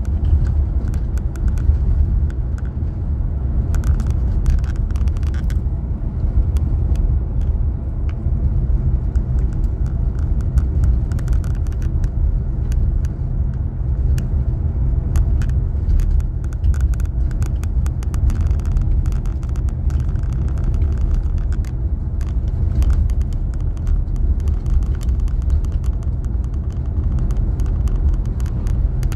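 Car driving at road speed, heard from inside the cabin: a steady low rumble of road and engine noise, with scattered light clicks and rattles throughout.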